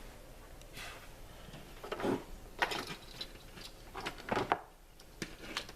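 A scattered series of short, light knocks and clicks, like objects being handled, grouped from about two seconds in onward.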